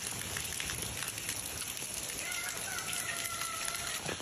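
Light rain falling on wet pavement and puddles, a steady hiss, with faint distant voices calling out in the middle.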